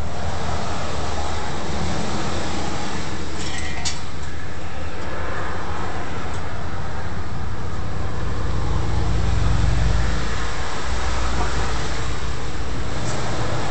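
Steady low drone with a hiss, swelling slightly about eight to ten seconds in, and a few light clicks about three and a half seconds in.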